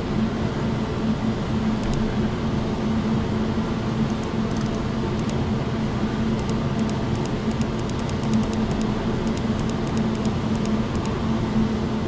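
Steady fan hum with a low drone and background hiss, with faint light clicks scattered through the middle.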